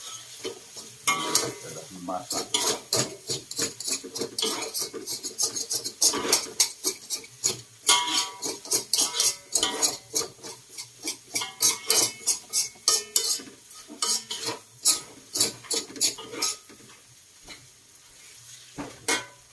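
Metal cooking utensils scraping and clanking against steel woks as instant noodles are stir-fried, a rapid irregular clatter over a low frying sizzle. The clatter stops about three-quarters of the way through, leaving a quieter stretch with a few last knocks near the end.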